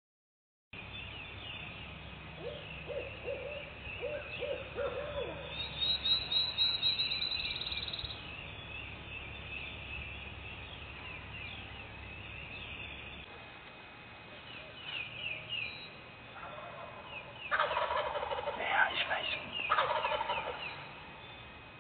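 Wild turkeys gobbling: a fainter run of gobble notes about three seconds in, and the loudest, rattling gobbles near the end. Songbirds chirp and sing throughout.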